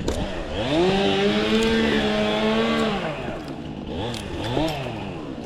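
Two-stroke chainsaw revved up to full throttle, held for about two seconds, then dropping back, followed by two short throttle blips near the end.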